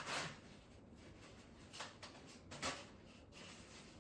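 A few short, soft rubbing swishes, one at the start, one a little under two seconds in and one near three seconds: a freshly wet-sharpened knife blade being wiped dry.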